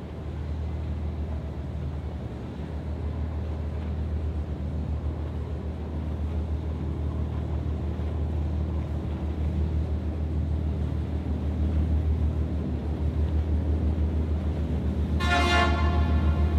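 Tugboat engine running with a steady low throb while it moves a barge, growing louder as the boat draws closer. Near the end, one short horn blast.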